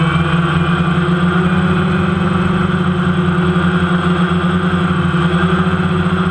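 Motors and propellers of a small remote-control aircraft, heard from its onboard camera: a loud, steady, even-pitched hum with no change in speed.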